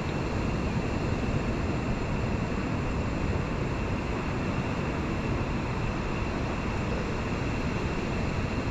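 Steady beach ambience: an even rushing noise, heaviest in the low end, with no changes in level.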